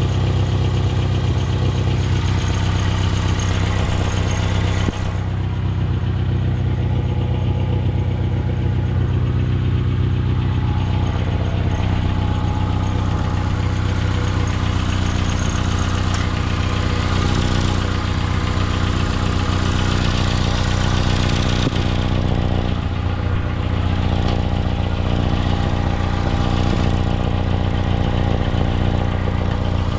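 2016 Mitsubishi Outlander engine idling steadily.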